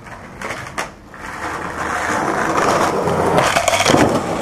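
Skateboard wheels rolling over rough pavement. The rolling noise swells steadily over the first couple of seconds and stays loud, after a couple of light clicks about half a second in.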